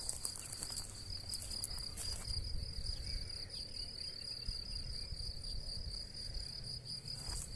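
A cricket trilling steadily in a continuous, finely pulsing high note, over a low rumble.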